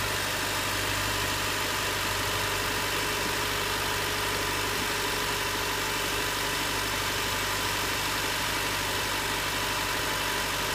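1992 Honda Civic LX's 1.5-litre 16-valve four-cylinder engine idling steadily under the open hood. It is on a raised cold-start fast idle of about 1500 rpm after its first start of the day in freezing weather.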